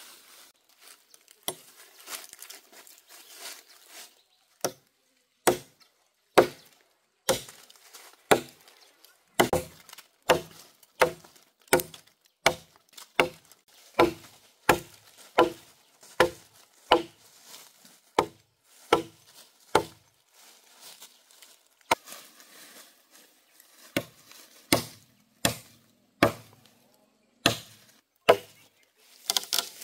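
A blade chopping into wood: sharp, hard chops in a steady rhythm a little more than one a second, starting about five seconds in after a few lighter knocks and turning less regular near the end.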